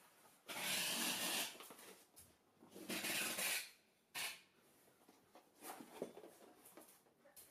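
Cardboard box handled against a tabletop: two rubbing, scraping noises of about a second each, a short sharp sound a little after the middle, then lighter rustling near the end.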